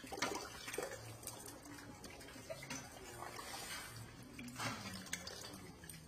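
Raw taro sticks being swished and rubbed by hand in a steel pot of water under a thin stream of running tap water: sloshing and splashing, with a few louder splashes.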